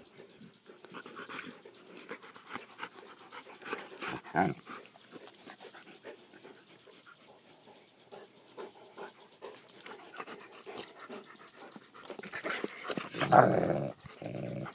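Two Newfoundland dogs play-wrestling mouth to mouth: panting, snuffling and small mouthing noises. Brief louder outbursts from the dogs come about four seconds in and, loudest, shortly before the end.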